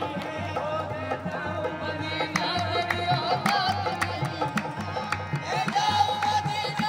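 Music: a voice singing a wavering, ornamented melody over regular percussion strokes and a steady low drone.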